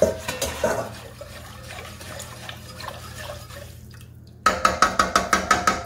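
A wire whisk stirring through thick creamy potato soup in a stainless steel stockpot, making wet sloshing sounds. Near the end it breaks into a quick run of ringing metal clanks, about eight a second, as the whisk strikes the side of the steel pot.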